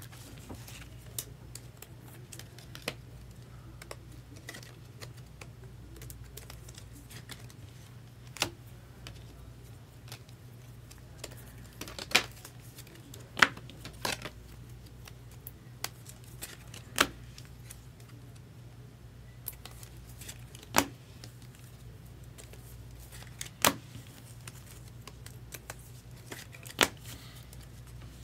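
Irregular sharp clicks and taps from handling trading cards and their packaging, a dozen or so louder ones scattered through, over a faint steady low hum.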